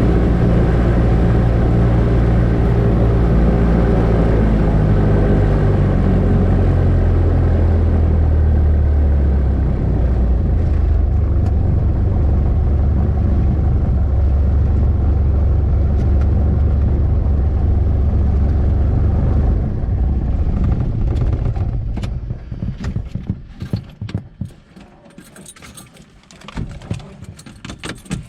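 Cessna 172's piston engine and propeller running at low power, the engine note dropping a little about a third of the way in, then the engine is shut down and winds to a stop. After it stops, short clicks and rattles, like switches and keys being handled in the cockpit.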